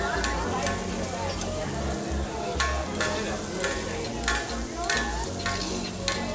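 Food sizzling on a hibachi grill while a metal spatula stirs and scrapes, with sharp clacks of the spatula against the griddle every second or so.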